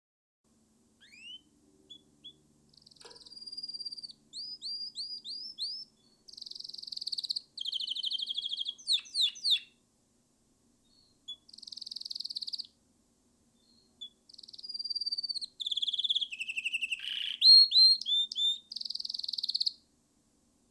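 Canary singing: two long song phrases of rising whistles, fast trills and repeated slurred notes, with a brief pause between them.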